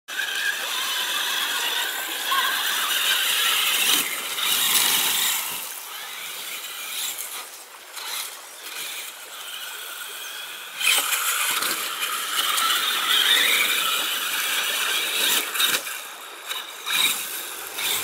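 Traxxas Summit RC truck with a Castle Mamba Monster 2 brushless system driving hard: a high whine from the electric motor and gears that rises and falls with the throttle, loudest in two long runs with a quieter stretch between. Short clicks and rattles come from the tyres on gravel and stones.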